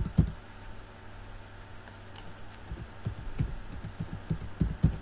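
Computer keyboard being typed on: scattered dull keystrokes, a couple at the start and a run in the second half, over a faint steady hum.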